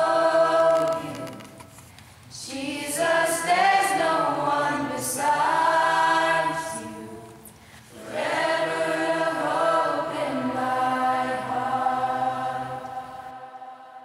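A small mixed group of young voices singing a cappella together, in three long phrases with short breaks between them. The last note is held and fades away near the end.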